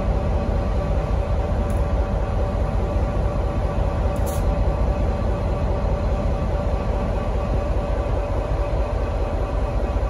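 V/Line N class diesel-electric locomotive idling at a standstill: a steady low engine rumble with a faint, even hum of higher tones over it.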